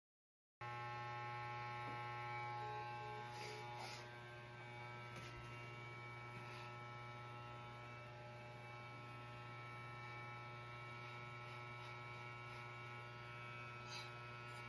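Electric hair clippers running with a steady low buzz while cutting hair, with a few faint clicks.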